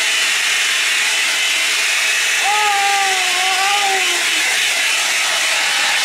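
Hand-held hair dryer running steadily, drying a toddler's hair. A brief high voice sounds over it about halfway through.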